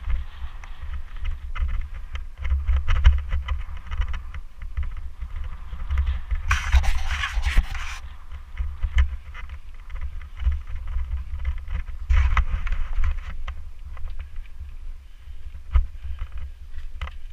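Mountain bike riding down a dirt trail, heard from a camera on the rider: a constant low rumble of wind and trail bumps on the microphone, with the rattling and crunching of the bike and its tyres. A harsher scraping noise about six and a half seconds in lasts about a second and a half.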